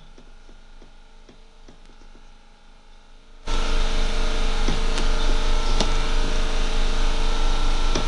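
Steady hiss and electrical hum with scattered clicks from a video call's audio feed. About three and a half seconds in it jumps sharply louder and stays loud, as the screen-capture software's audio level is turned up.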